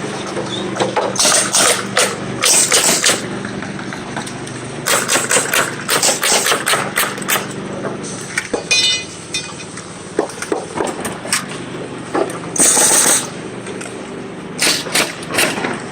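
Clatter of sharp knocks and clicks in irregular clusters over a steady engine hum, with a brief high hiss a little after the middle.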